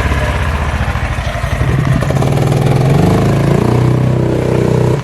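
Golf cart engine running hard under full throttle as the cart accelerates. Its pitch climbs about two seconds in and then wavers up and down.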